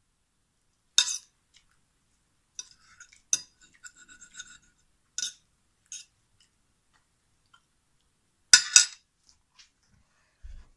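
Metal fork clinking and scraping against a plate in scattered sharp clicks, with a cluster of small clinks around three to four and a half seconds in and a loud double clink about eight and a half seconds in.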